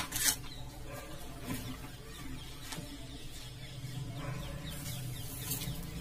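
Two sharp clicks right at the start, then a few faint scattered clicks over a steady low hum, as tools and a soldering iron are handled on a CRT TV circuit board.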